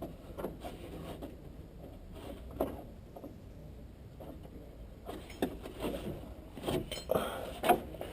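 Irregular light clicks, knocks and scrapes of hand tools and car parts being handled, with a few sharper knocks between about five and eight seconds in.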